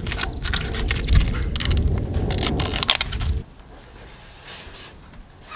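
Sheet-metal cupola roof panels and their protective plastic film being handled: crackling, rustling and scraping over a low rumble. Both cut off abruptly about three and a half seconds in.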